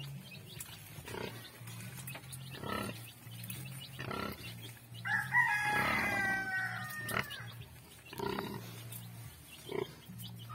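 Nursing sow grunting in a slow, regular rhythm, about one grunt every second and a half, while her piglets suckle. A rooster crows once midway through, a held call of about two seconds that is the loudest sound.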